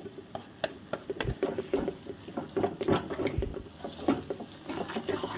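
Wooden spatula stirring and scraping grated vegetables in a metal kadai: irregular scrapes and light clicks of wood on the pan, with a couple of duller knocks against the pan.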